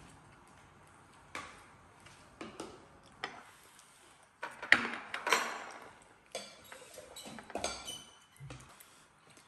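Chopsticks and tableware clinking and tapping against ceramic plates and bowls in a run of separate short knocks and scrapes, loudest about five seconds in.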